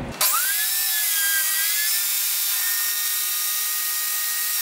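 Table saw running, ripping a piece of 3/4-inch walnut stock: a steady high whine over a hiss. It starts suddenly, and the whine dips slightly in pitch about a second in.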